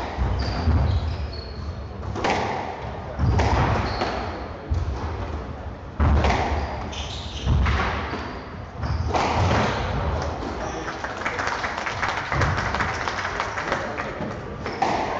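A squash rally: racket strikes and the ball hitting the court walls, each a sharp thud with hall echo, about every one to one and a half seconds, stopping about ten seconds in.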